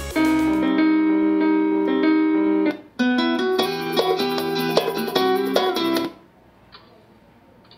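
Pop music with guitar playing through a Bluedio BS-3 Bluetooth speaker, jumping abruptly to a different song twice as tracks are skipped. About six seconds in, the music cuts off, leaving only faint background noise.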